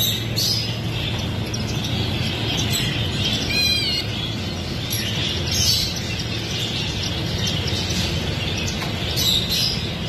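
Many caged finches and other small songbirds chirping and twittering together, with one clearer run of quick chirps about three and a half seconds in, over a low steady hum.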